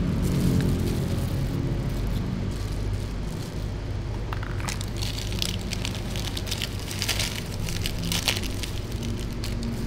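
Plastic crinkling and crackling as gloved hands handle wrapped gummy candies, in quick clusters from about halfway through, over a steady low hum.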